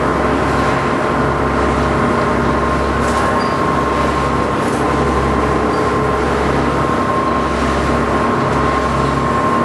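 A sightseeing cruise boat's engine running steadily under way. It makes a constant drone with a steady hum, and its low rumble dips briefly every second or two.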